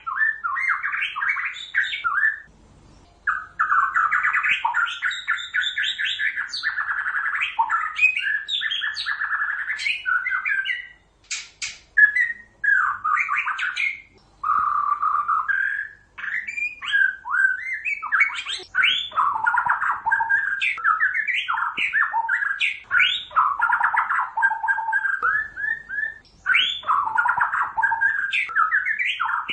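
White-rumped shama (murai batu) singing a long, varied song of rapid whistled phrases, sweeping notes and trills, broken by a few short pauses.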